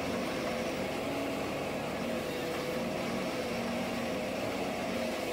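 Ponsse Ergo forest harvester running steadily while its head feeds a felled log: a constant diesel and hydraulic drone with a slightly wavering whine.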